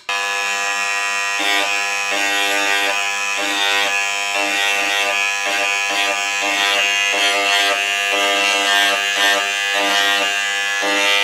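Handheld electric engraving pen running with a steady buzz, its tip engraving into a stainless steel container.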